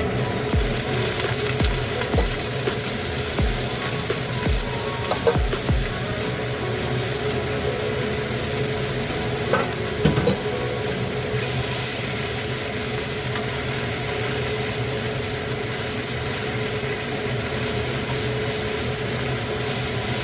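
Red amaranth leaves frying and being stirred in a pan, with a steady sizzle. Soft low knocks come about once a second through the first half and then stop.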